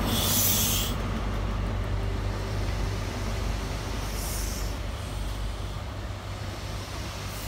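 High Speed Train with class 43 diesel power cars moving off: the leading power car's diesel engine runs and slowly fades as the coaches roll by. Two short hisses cut through, one at the start and one about four seconds in.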